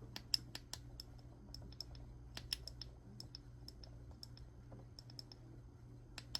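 Faint, light clicks of the Fenix HT32 flashlight's push-button switch being pressed over and over, about twenty irregular clicks, some in quick pairs.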